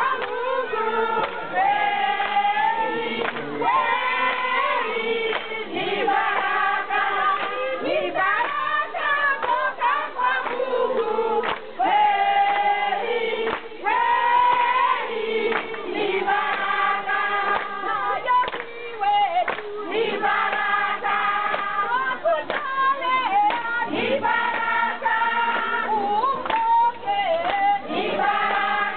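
A large crowd singing a song together in chorus, with hand clapping.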